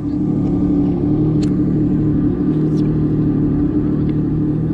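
Yamaha WaveRunner jet ski engine idling at a steady pitch while the craft sits still on the water.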